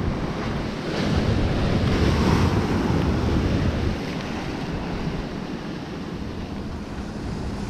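Ocean surf breaking and washing over a boulder shoreline, with wind buffeting the microphone. The wash swells about a second in and eases off after about four seconds.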